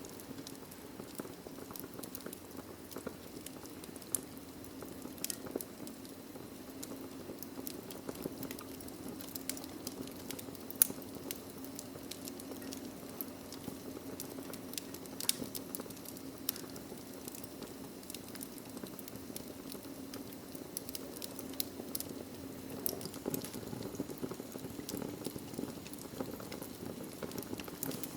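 Wood fire burning in a fireplace: burning logs crackling and popping at irregular intervals over a steady low rush of flame, with one sharper pop about eleven seconds in.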